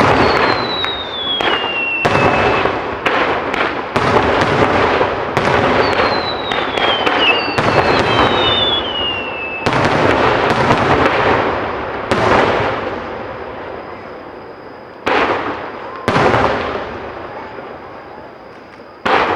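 Aerial fireworks display: shells bursting in quick succession with dense crackle, and whistling tones that fall in pitch, two of them in the first ten seconds. After that come single shell bursts a few seconds apart, each fading away.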